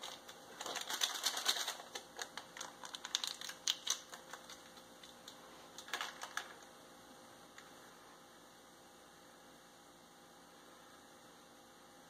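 A Red Star Premier Blanc dry yeast sachet being handled and torn open: a flurry of small, faint crinkles and crackles through the first four seconds, and another short burst about six seconds in.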